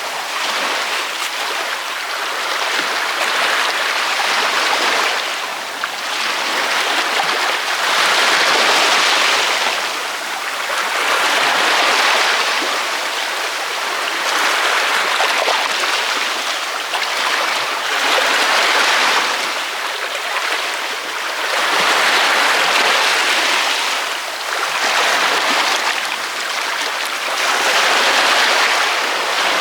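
Ocean waves breaking on a beach, a continuous rush of surf that swells and eases with each wave, about every three to four seconds.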